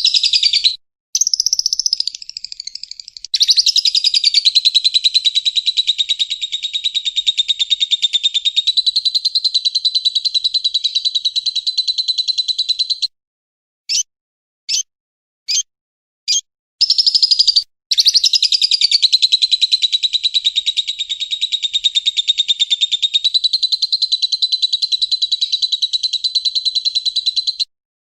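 Lovebird's long, rapid chattering trill ('ngekek'), twice, each run lasting about ten seconds. Short, sharp chirps repeat about every half second before, between and after the trills.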